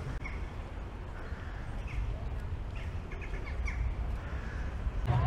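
Birds calling outdoors: a few short calls scattered through, with a quick run of four or five notes about three seconds in, over a steady low rumble of city ambience.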